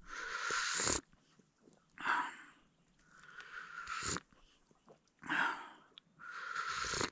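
A person breathing heavily, five breaths drawn in and blown out in a row, each a hissy rush of air lasting about half a second to a second.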